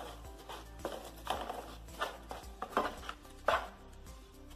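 A wooden spatula stirs and scrapes raw rice, corn kernels and fenugreek leaves in a nonstick pan, with a short scraping stroke every half second to a second. Soft background music plays underneath.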